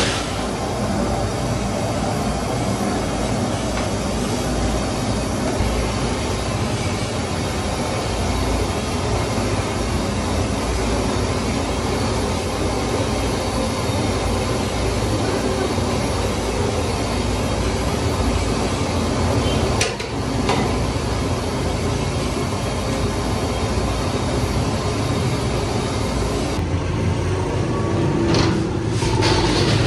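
Large high-pressure gas burners under big aluminium cooking pots, running with a steady loud rush. A couple of short knocks come near the end.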